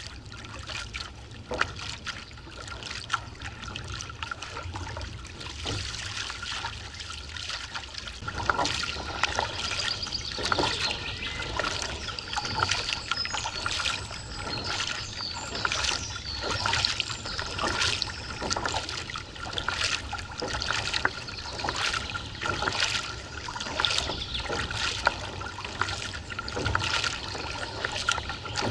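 Kayak paddle strokes: a Jantex Gamma Rio paddle blade dipping and pulling through the water with splashing and trickling drips, lighter for the first several seconds, then a steady rhythm of about one stroke a second.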